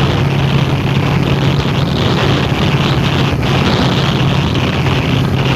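A vehicle's engine running steadily at a constant speed, with a strong low hum and travel noise over it.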